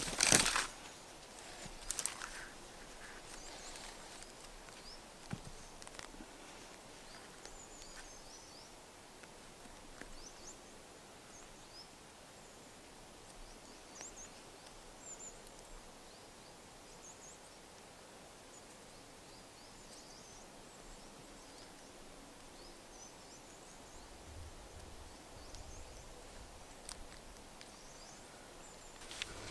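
Quiet woodland ambience with faint, scattered high chirps of small birds. A sharp, loud handling sound right at the start and a smaller one about two seconds in.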